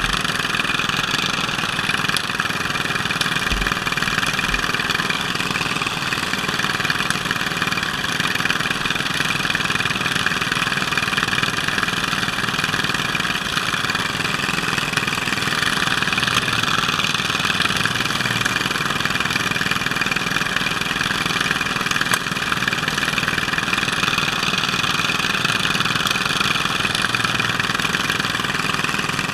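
Riding lawn mower's small engine running steadily, heard close up from just behind and above the hood.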